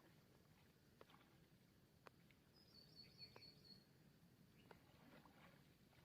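Near silence: faint outdoor ambience with a few soft clicks and a brief faint high chirping trill about three seconds in.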